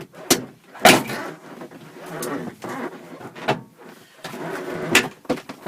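Plastic trim panel of a minivan sliding door being pulled away from the door, its retaining clips snapping loose several times with scraping and rattling of the plastic panel between the snaps.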